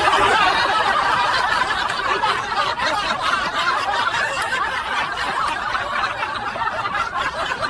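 Several people laughing together in a dense, steady mix of laughs and chuckles that overlap without a break, in reaction to a joke.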